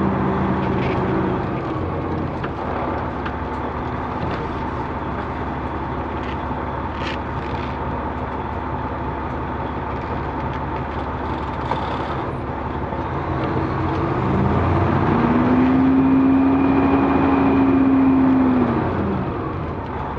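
Semi truck's diesel engine running while the truck creeps forward at low speed. About fourteen seconds in, the engine pitch and level rise as it is given more throttle, hold for a few seconds, then drop back near the end.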